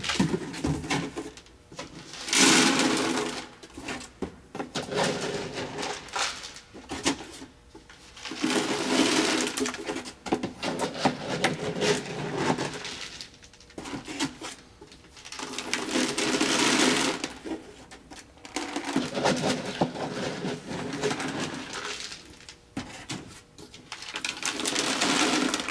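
Dry cat food being poured and handled in a carrying container: about five noisy, rattling bursts, each a couple of seconds long, with short pauses between them.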